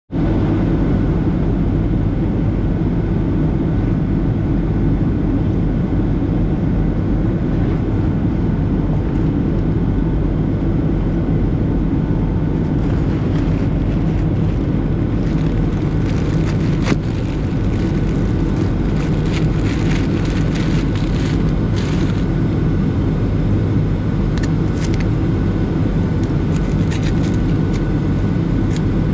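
Steady in-flight cabin noise of a Boeing 757 heard beside a window near the wing engine: a deep rumble of the jet engines and airflow with a faint steady whine. A few faint clicks come in the second half.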